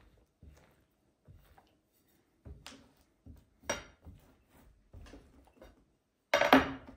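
A long, thin metal rolling pin rolling and knocking over yeast dough on a wooden table, in a series of short, uneven strokes. A louder clatter comes near the end, as the pin is lifted off and set down.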